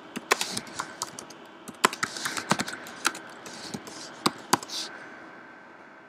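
Typing on a computer keyboard: a run of irregular key clicks that stops a little before five seconds in.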